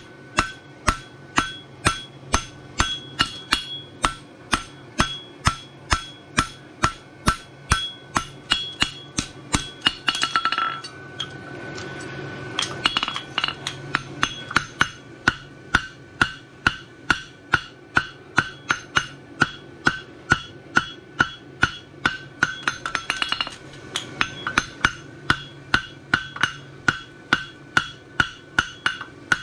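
Hammer blows on a red-hot horseshoe on an anvil, a steady two to three strikes a second, each one ringing off the anvil: the farrier is forge-welding the bar onto the branches of a bar shoe. The hammering breaks off briefly just past the middle, then carries on.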